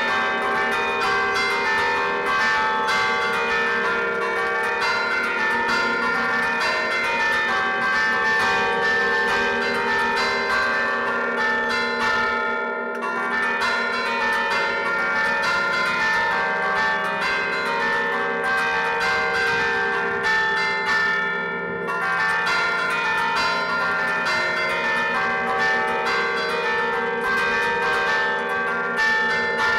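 Church bells played by hand from a wooden baton keyboard (tastiera): the ringer's fists strike the levers, whose chains pull the clappers against the hanging bells, giving a fast, continuous melodic run of bell strikes. The playing pauses briefly about 13 seconds in and again about 22 seconds in.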